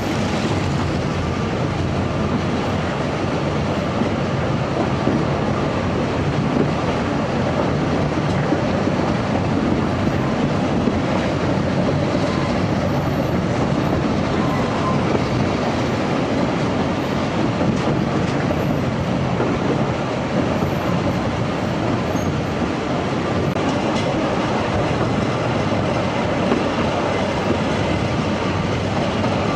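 Narrow-gauge steam train running, heard from an open coach: a steady rumble and clatter of the carriages' wheels on the rails, with no pauses.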